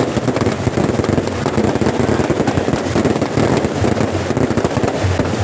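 A long string of firecrackers going off, a dense, rapid run of pops and cracks without a break.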